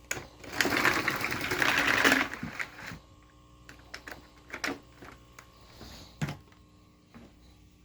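Eureka AirSpeed AS1101 vacuum's cord-rewind reel pulling in the power cord with a fast rattling whir for about two seconds, followed by scattered clicks and knocks.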